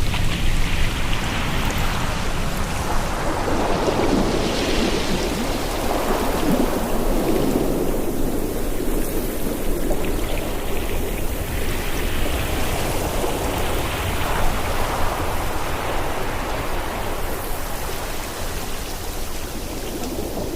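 Ocean surf and wind: a continuous rushing with a low rumble underneath, swelling and ebbing every few seconds as waves break.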